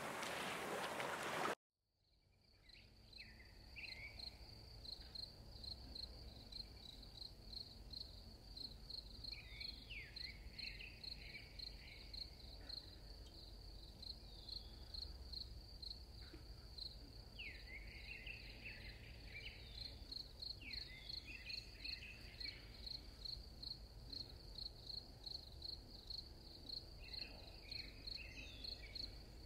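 Faint outdoor ambience of an insect chirping in a steady, rapidly pulsing high trill, with a few short bird calls now and then. It opens with a second and a half of loud wind-and-water hiss that cuts off abruptly.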